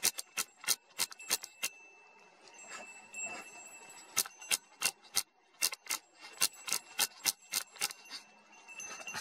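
Crisp mechanical clicks from a click-stop dial on the camera being turned one notch at a time, about three clicks a second. They come in two runs with a pause of about two and a half seconds between them, over a faint steady high tone.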